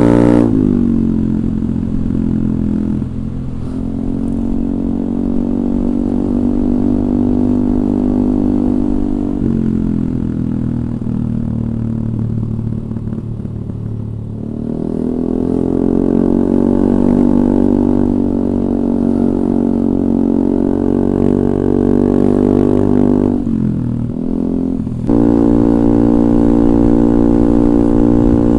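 Yamaha Aerox 155 scooter's single-cylinder engine through a DSM Cobra racing exhaust with a 38 mm inlet, giving a low droning exhaust note. The revs drift up and down at a steady, moderate level, and the sound changes abruptly just after the start and again about 25 seconds in.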